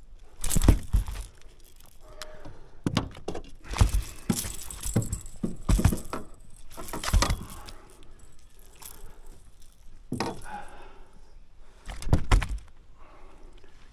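Handling noise from unhooking a golden perch with pliers in a landing net: metallic jangling of the lure and pliers and knocks as the net and fish are moved about the boat deck. There are several separate clusters of rattles and thumps, the loudest near the start and again near the end as the fish is laid on the measuring mat.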